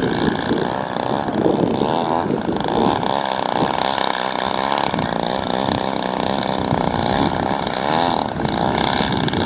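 Desert Aircraft DA-120 twin-cylinder gasoline two-stroke engine of a giant-scale RC aerobatic plane, an Extreme Flight Slick 580, running hard in flight, its pitch sweeping up and down.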